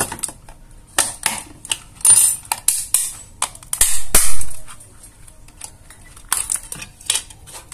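Sharp plastic clicks and snaps, with two longer bouts of scraping and cracking, the loudest about four seconds in, as the sealed plastic case of a Canon printer power adapter is pried apart.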